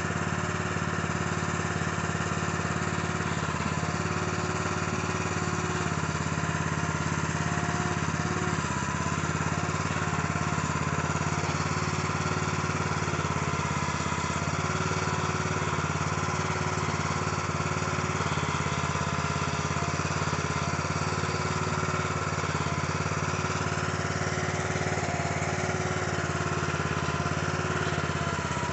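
Small gasoline engine of a backhoe/trencher attachment running steadily, with a fainter higher whine that comes and goes.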